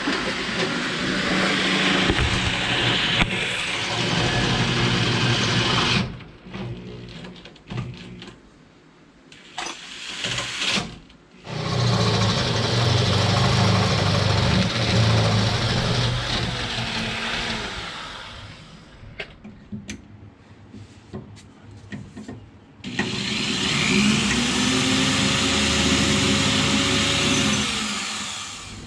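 Electric drill boring holes through the car's steel subframe for subframe connector bolts: three long runs of drilling of about five to six seconds each, with short pauses between them, the motor's pitch sagging a little under load.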